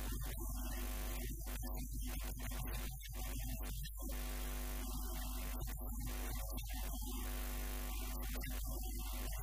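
Steady electrical mains hum with a buzzing stack of overtones over a constant hiss.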